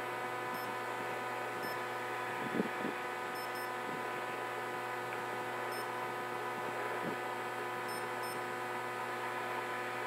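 Steady electrical mains hum with many overtones, echoing in a concrete road tunnel. Faint short high beeps come seven times, twice as quick pairs, from a handheld ghost-detector gadget taking readings, and there are a couple of soft clicks.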